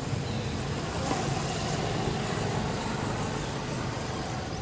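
Steady outdoor background noise with a low rumble, a little louder from about a second in.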